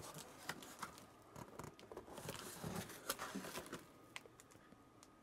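Cardboard box and packaging being handled and opened, faint: scattered small clicks and knocks, with a soft stretch of scraping in the middle.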